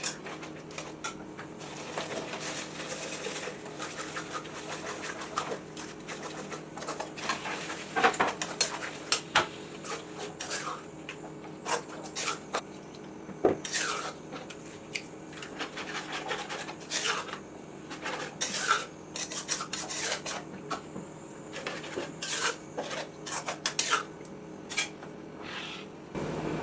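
Utensils clinking and scraping against dishes and pots: many irregular sharp clicks with short scrapes in between.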